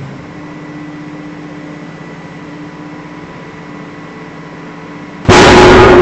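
Hydraulic press running with a steady hum as it squeezes a glass ball under about 76 tonnes of load. About five seconds in, the ball shatters with a sudden, very loud burst.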